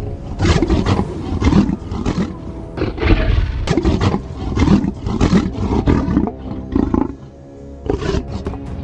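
Monster voice growling and roaring in a run of short bursts, the creature's stand-in for subtitled speech, over sustained background music. The bursts pause briefly about seven seconds in.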